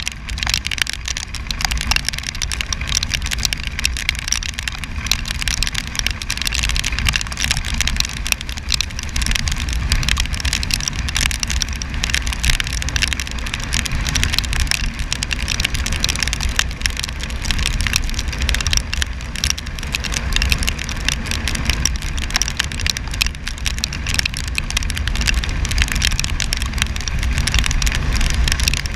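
Wind rushing over the microphone of a scooter ridden at about 85 km/h in the rain, a steady low rumble under the hiss of rain and tyre spray on the wet road, with raindrops ticking on the mic.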